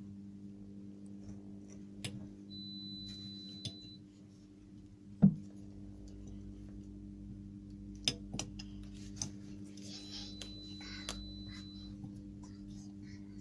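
A steady high pure test tone from a hearing-test audiometer sounds twice, each time for about a second and a half: a few seconds in and again about ten seconds in. Scattered small clicks and knocks come in between, with a louder low thump about five seconds in, all over a steady low hum.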